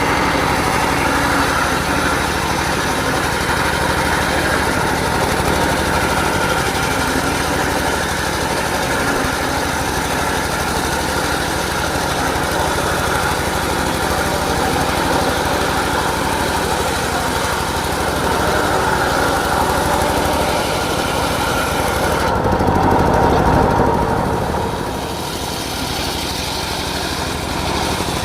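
Engine-driven homemade circular sawmill running steadily with continuous motor and blade noise. About 22 seconds in the sound changes, briefly swelling louder and deeper, then settling a little quieter for the last few seconds.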